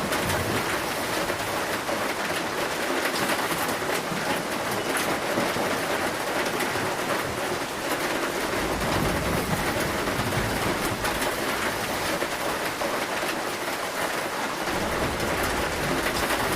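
Heavy rain drumming on a zinc roof: a steady, dense patter of drops striking the metal sheets. A low rumble of distant thunder swells about halfway through and again near the end.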